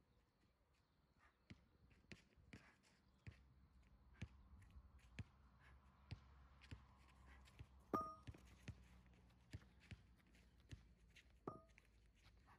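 Faint scattered taps and knocks, with two short metallic clinks that ring briefly, one about eight seconds in and one near the end: iron dumbbell plates knocking together as the dumbbells are handled on asphalt.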